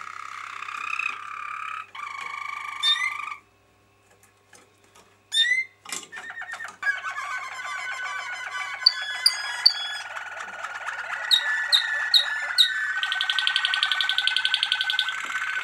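Domestic canaries singing: quick warbled trills and rolls, a break of about two seconds, then a continuous run of rolling trills with short rising whistled notes and a fast buzzing roll in the last few seconds.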